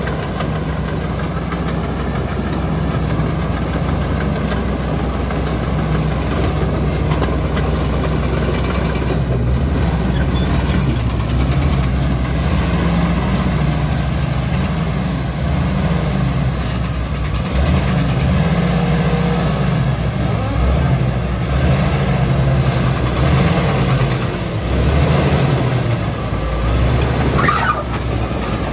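Komatsu D85ESS-2 bulldozer's diesel engine running steadily, its low note wavering up and down a little in the second half.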